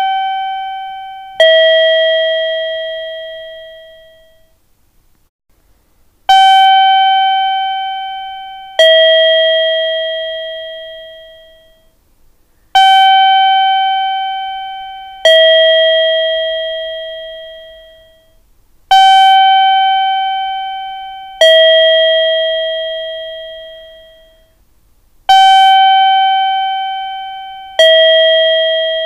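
Two-tone 'pin-pon' station chime, a higher note then a lower one, each ringing out and fading, repeating about every six seconds: the kind of guide chime that marks the ticket gates in a Japanese station for visually impaired passengers.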